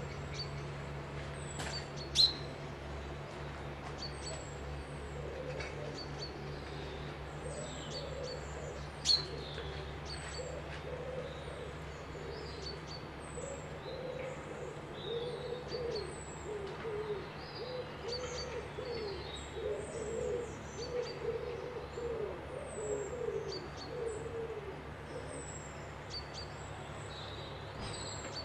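Birdsong outdoors: a low, wavering hooting or cooing call repeats over and over, loudest through the middle and latter part, while a small bird gives thin high chirps about once a second. Two sharp clicks stand out in the first third, over a steady low hum.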